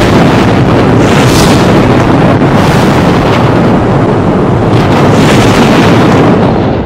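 Thunder rumbling loudly and continuously, with a few sharper cracks, the rumble dropping away near the end.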